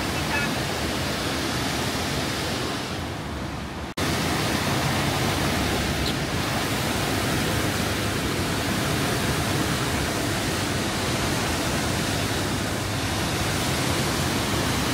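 Steady rush of the Låtefossen twin waterfall, close by and heard through an open vehicle window. About four seconds in, the noise sags briefly and then jumps straight back.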